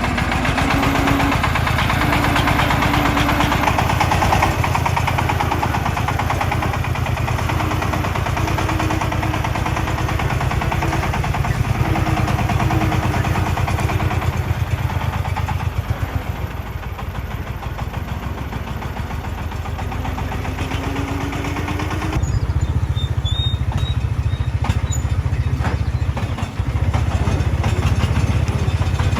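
Diesel engines of heavy work machinery running with a steady low rumble, and a short whine rising and falling several times over it. The sound changes abruptly about 22 seconds in.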